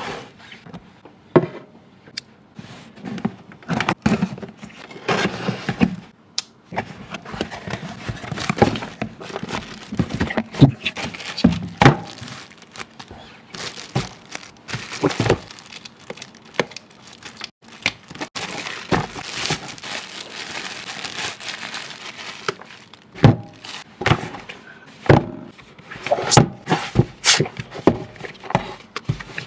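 Product packaging being opened and handled by hand: wrapping crinkling and tearing, with irregular clicks and knocks as box parts are opened and set down.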